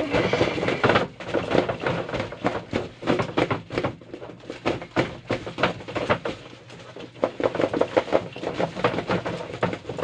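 Cardboard-box model washing machine shaken hard by hand, rattling and knocking against its plastic base in rapid, irregular hits with a few pauses.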